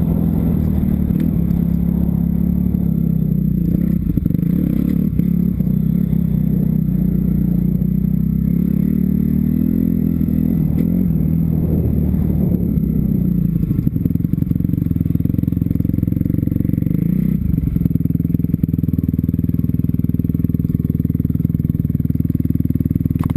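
Kawasaki KX250F's single-cylinder four-stroke engine running under the rider, its pitch rising and falling with the throttle for the first dozen seconds or so, then holding steady at low revs for the last several seconds.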